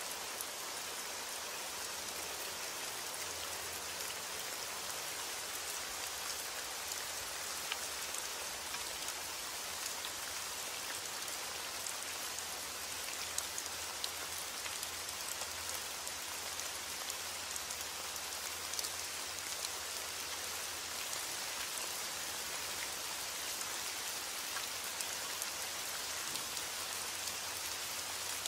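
Steady, even rain falling, with scattered louder individual drops ticking now and then.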